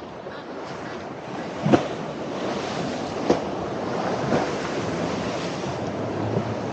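Kayak being paddled: water rushing and splashing along the hull, with a short knock every second or two as the paddle strokes.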